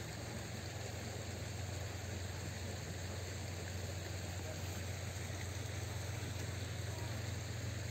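Steady outdoor background noise: a constant low hum under a faint hiss, with no distinct events.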